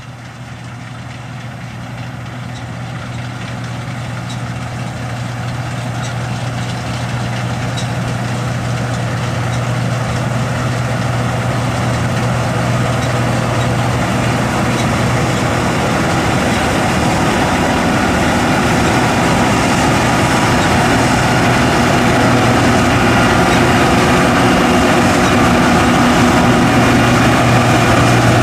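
John Deere S550 combine running in the field, a steady engine hum with machinery noise over it, growing steadily louder.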